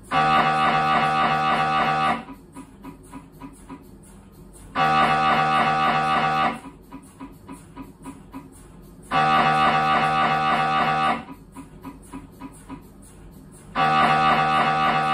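Siemens Symphony Maestro Class 1.5 T MRI scanner's gradient coils running an imaging sequence. A loud, pitched buzz sounds for about two seconds at a time, four times at a regular interval, with quieter rapid ticking in between.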